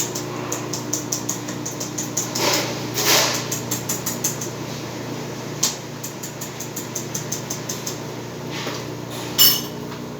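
Kitchen work sounds: light rapid clicks and knocks of utensils and containers over a steady low hum. There are two short noisy bursts about two and a half and three seconds in, and a sharper clack near the end.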